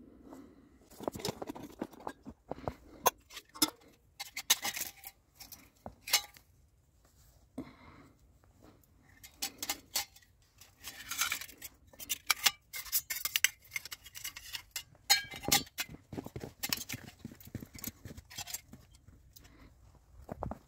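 Metal camp cookware being handled: a Widesea titanium pot, a lid and a small wood-burning camp stove knocking and clinking together as they are picked up and set down. Irregular sharp clinks and taps, with brief brushing noises between.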